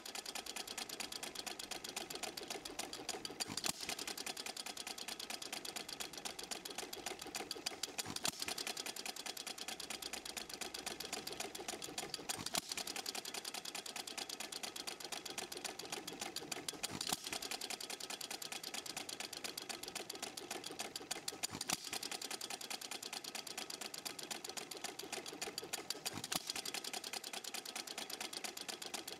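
Stuart Little Major hit-and-miss engine running: a fast, steady mechanical clatter as the flywheel carries it round. A sharper crack comes about every four and a half seconds, the governor letting it fire only when it slows.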